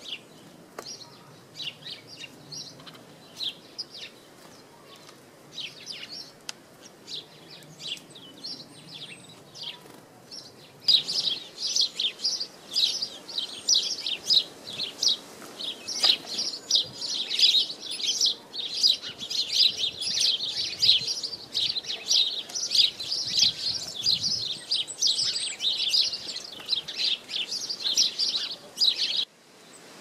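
Small songbirds chirping: scattered high calls at first, then from about eleven seconds in a dense, loud stream of quick high chirps that cuts off suddenly near the end. Faint wind noise underneath.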